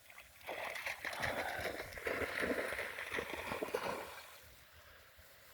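A retriever dog splashing through pond water after a thrown ball, a rough churning of water that runs for about three and a half seconds and then stops.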